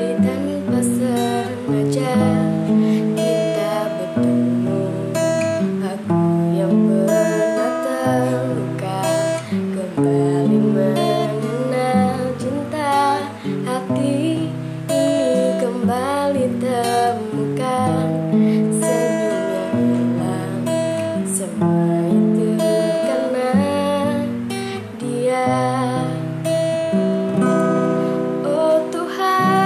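A woman singing while accompanying herself on a strummed acoustic guitar fitted with a capo.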